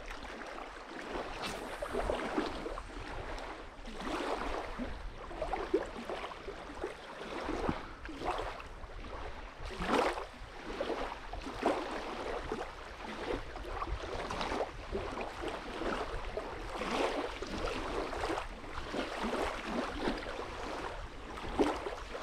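Small waves lapping and washing on a sandy riverbank, coming in irregular swells about once a second.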